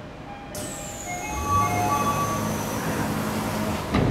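Station platform screen doors and train doors closing. A sudden hiss and a run of short chime tones come first, then a low hum as the doors slide, ending in a thud as they shut near the end.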